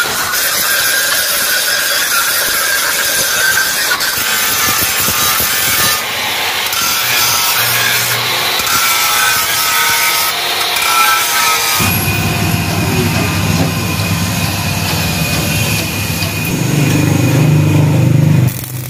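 Handheld angle grinder grinding the steel of a tractor trolley body, a steady motor whine over the hiss of the disc on metal. About twelve seconds in the sound switches abruptly to a lower, steady rumble.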